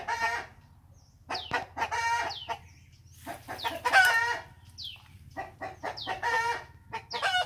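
Chickens cackling: runs of quick short clucks, each ending in a longer drawn-out call, repeated several times over, loudest about halfway through.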